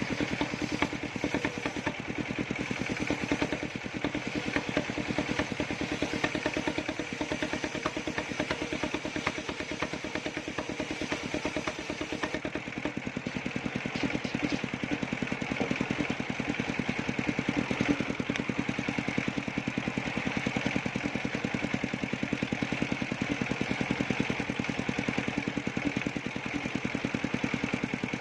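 Engine of a circular sawmill rig running steadily with a fast, even pulse.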